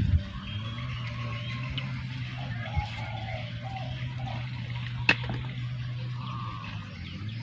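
A steady low hum with faint bird chirps over it, and one sharp crunch about five seconds in, as a bite is taken from a crisp salak (snake fruit).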